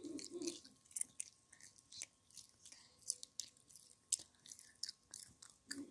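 A child chewing bubblegum close up: faint, irregular wet smacks and clicks of the mouth working the gum.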